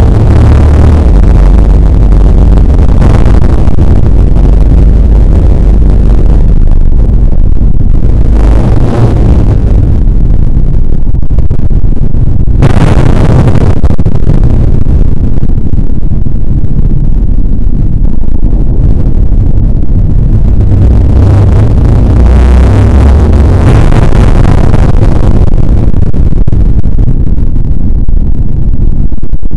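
Classroom audio slowed about sixteen times and bass-boosted until it clips: a loud, continuous low rumble, with a few brief surges of hiss, the sharpest about halfway through.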